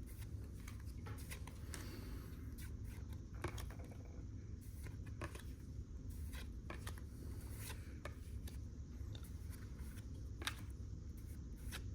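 Faint handling of football trading cards: light clicks, rubs and slides as cards are flipped through one by one, over a low steady hum.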